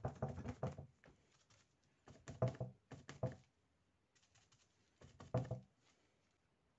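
A sponge dabbing acrylic paint onto a painted paper surface: quick runs of soft taps, in about four short bursts with pauses between.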